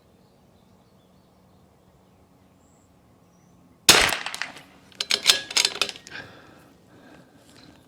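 A single .22 LR rifle shot from a Rim-X bolt-action rimfire, a sharp crack about four seconds in with a short ringing tail. About a second later comes a quick run of metallic clicks and clacks as the bolt is worked to eject the case and chamber the next round.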